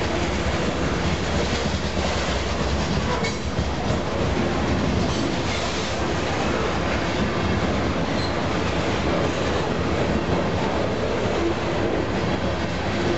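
Covered hopper cars of a long freight train rolling past close by: a steady rumble of steel wheels on the rails, with a few knocks a few seconds in.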